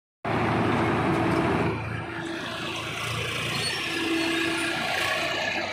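Diesel engines of a backhoe loader and a Swaraj tractor running close by: a steady engine drone, louder for the first couple of seconds, with a higher tone coming and going over it.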